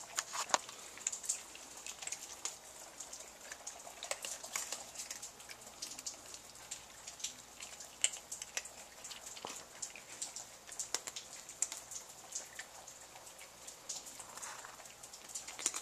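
Several cats crunching dry kibble off a tile floor: a steady scatter of small, irregular crunches and clicks.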